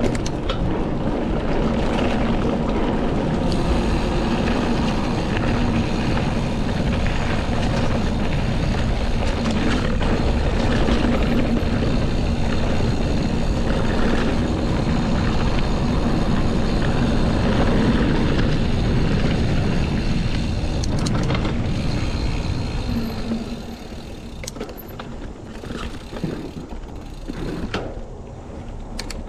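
Riding noise from a Devinci Kobain hardtail mountain bike on a trail: tyres rolling over dirt and gravel and wind on the microphone, with a steady low hum. About three quarters of the way through it gets quieter, leaving scattered clicks and rattles.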